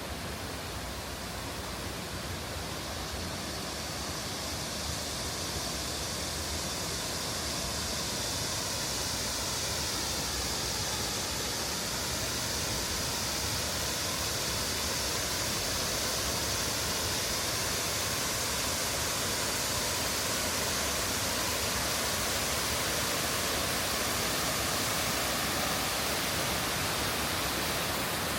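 Water of Cheonggyecheon Stream rushing steadily over a shallow cascade, as an even hiss that slowly grows louder.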